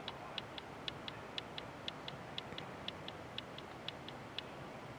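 Night insects chirping in a steady rhythm: short high chirps in pairs, about two pairs a second, over a faint steady hiss.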